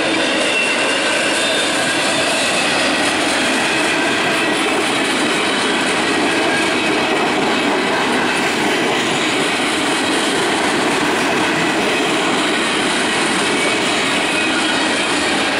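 Steel wheels of a passing freight train of empty flatcars rolling on the rails: a steady, loud rolling noise with faint high ringing tones over it.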